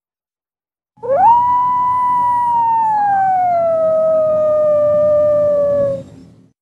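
A single long canine howl starting about a second in: it rises quickly, holds its pitch, then slides slowly downward until it stops, over a low background rumble.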